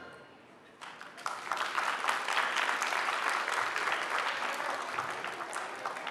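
The last of the music dies away, then an audience starts applauding about a second in. The clapping builds quickly and tapers off near the end.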